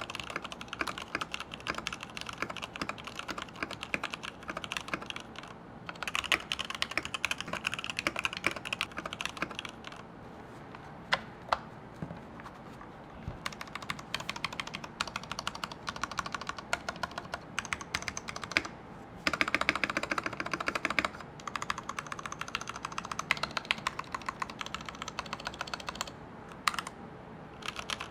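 Typing on a Varmilo VA87M tenkeyless mechanical keyboard with Varmilo EC V2 linear switches: quick runs of keystrokes, thinning to a few single presses about ten seconds in, with a couple of brief pauses near the end.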